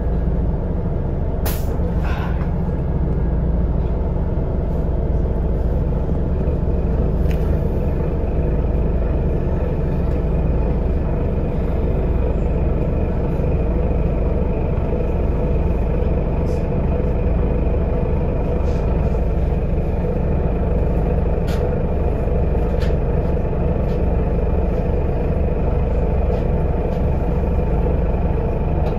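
Solaris Urbino 18 III articulated city bus heard from inside the passenger cabin: a steady low engine and drivetrain rumble. A few sharp clicks and rattles come through it, the first about a second and a half in.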